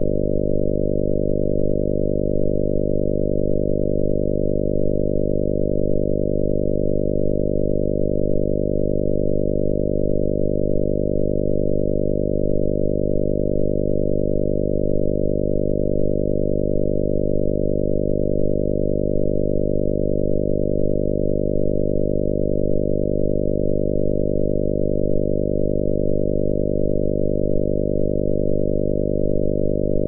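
Synthesized 50 Hz mains hum: a steady, unchanging low drone built from a 50 Hz tone with its harmonics and sub-harmonics, imitating the hum of European mains electricity.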